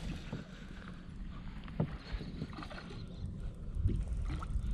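Water lapping against a fishing boat's hull over a low wind rumble, with a few faint clicks.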